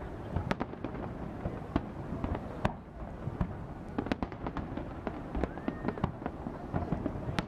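Aerial fireworks shells bursting in quick, irregular succession: sharp cracks and bangs, several a second, over a steady low rumble.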